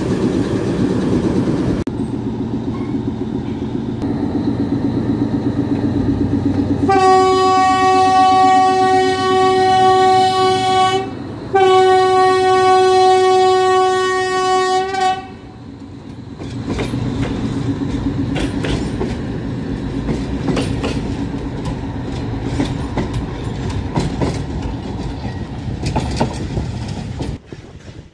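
Narrow-gauge diesel locomotive's engine running, then its horn sounding two long blasts, the second just after a short break. Afterwards the wheels roll with many quick clicks over the rail joints.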